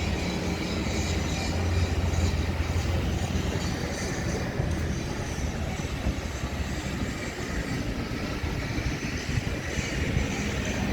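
Steady rumbling outdoor noise with a broad hiss and no distinct events, the mixed background of city traffic and a construction site.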